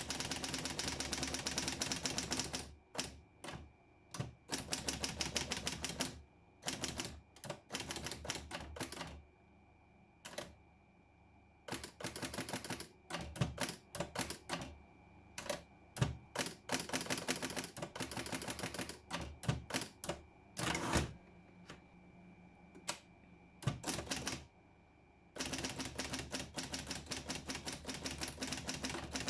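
Underwood Documentor electric typewriter being typed on: fast runs of key strikes lasting a few seconds each, broken by short pauses, with the machine's steady running hum underneath.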